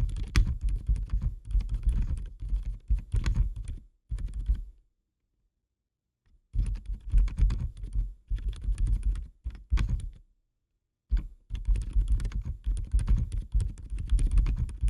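Rapid typing on an Akko x Dark Project 5075S mechanical keyboard with Akko Fairy Silent switches: quiet, soft key presses in fast runs, broken by two short silent gaps about five and ten seconds in.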